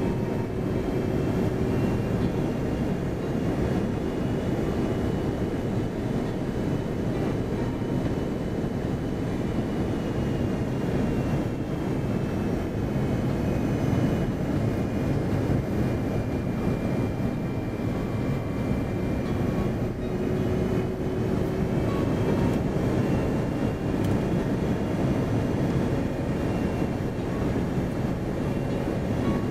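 Airbus A330-300 cabin noise on final approach, heard from a window seat beside the engine: a steady deep roar of engine and airflow, with a faint high whine that drifts slowly up and down in pitch.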